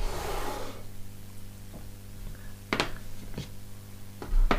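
Hands handling a smartphone and its packaging on a wooden desk: a brief rustle at the start, then a few sharp knocks as the phone and box pieces are set down on the wood, the loudest near the end. A steady low hum runs underneath.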